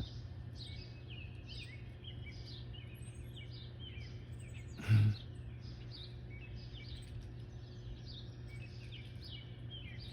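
Small songbirds chirping continuously, many short falling chirps overlapping, over a steady low background hum. A brief low thump about five seconds in stands out above the chirping.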